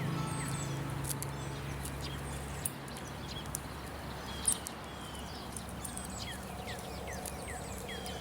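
Woodland birds chirping, with many short calls that slide down in pitch, over scattered crisp crunches of footsteps in snow. A low steady hum sounds for the first few seconds, then stops.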